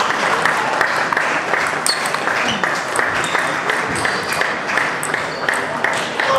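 Table tennis ball clicking off bats and table in a rally, over a dense, irregular patter of clicks and a murmur of voices from the surrounding tables in the hall.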